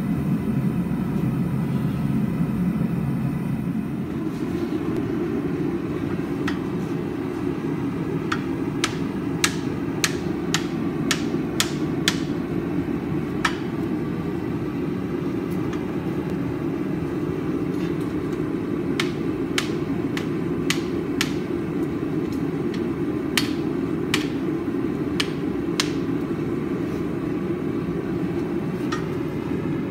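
Hammer blows on iron, forging a stair-rail volute. The blows come in bursts of sharp strikes, about two a second, over a steady low roar from the forge.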